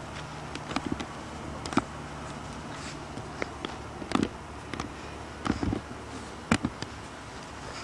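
Irregular soft clicks and light knocks, a few with a dull low thump, over a low hum that fades out about three seconds in.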